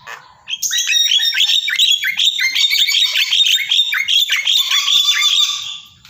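Javan myna (jalak kebo) calling in a loud, rapid run of chattering and whistled notes that starts about half a second in and fades out near the end.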